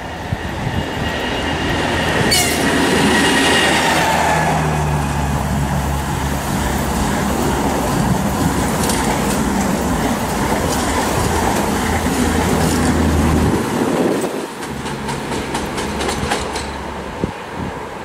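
EP20 dual-current electric locomotive and its Strizh Talgo passenger cars passing at speed. A falling whine sounds as the locomotive goes by a couple of seconds in, followed by the steady rumble of the carriages, which drops off suddenly after about 13 seconds. A quick run of sharp wheel clicks comes near the end as the tail of the train passes.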